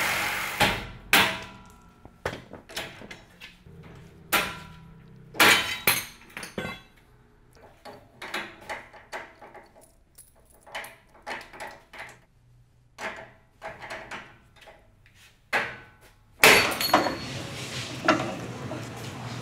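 A cordless reciprocating saw cutting through a trailer coupler lock stops within the first second. It is followed by a long, irregular string of sharp metal clinks and knocks as the sawn lock is taken apart and its pieces handled. Near the end comes one loud metal knock, then steadier background noise with a few clanks as a steel bar is levered against a coupler lock.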